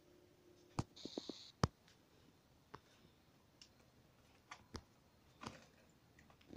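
A few sharp, scattered clicks and light knocks, with a short hiss about a second in.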